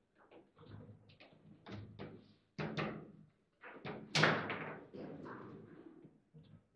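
Foosball table in play: the ball clacking against the plastic players and the table walls, with rods knocking, a string of sharp knocks and the hardest strike about four seconds in.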